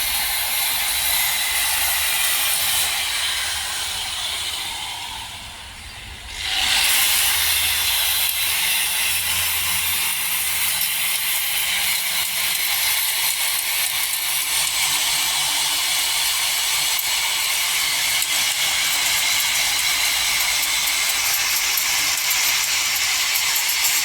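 Loud steady hissing noise, likely from work on the frame, that sags around five seconds in and then comes back at full strength.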